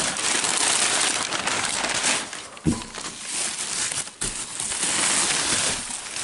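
Packing material in a cardboard shipping box crinkling and rustling as hands dig through it, with a single sharp knock a little before halfway.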